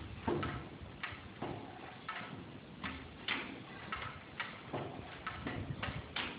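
10 HP IHC Mogul single-cylinder stationary engine running slowly: a clatter of clicks and knocks, about two a second, over a low rumble.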